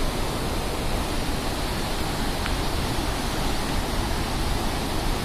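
Floodwater rushing in a swollen torrent, a steady loud rush of water with no break.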